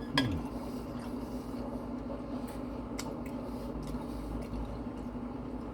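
Quiet chewing of poutine (fries and cheese curds in gravy), with a few faint mouth clicks, over a steady low hum.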